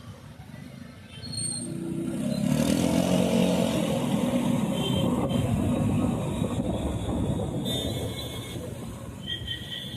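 Motor vehicle engine running. It swells about two seconds in, stays loudest for a few seconds, then eases off.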